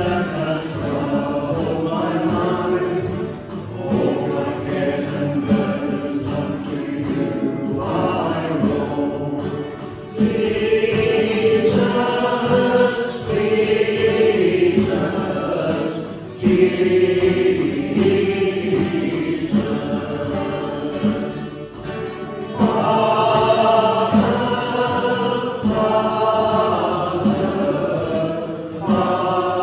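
Church congregation singing a hymn together, phrase after phrase, with short breaks between lines.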